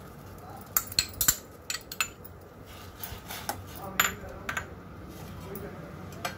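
A steel spoon clinking against a stainless steel pot while stirring vegetables: a string of short, sharp metal clinks at irregular intervals.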